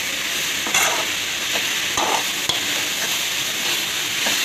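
Shredded vegetables and boiled soybeans frying in a metal kadai with a steady sizzle, while a metal spatula stirs them, scraping and giving scattered clicks against the pan. The ground chilli and turmeric powder are being fried into the mix.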